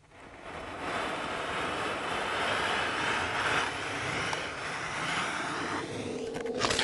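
A steady rushing roar, like a jet engine or strong wind, that swells up over the first second and holds. A few sharp crackling clicks come near the end.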